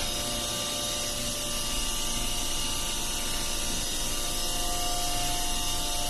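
Ship's pump-room machinery running: a steady hiss with several steady hum tones underneath, unchanging in level.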